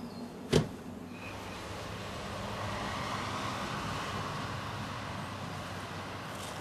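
A car door slammed shut once with a sharp thud, followed by a steady rushing noise that swells and then eases.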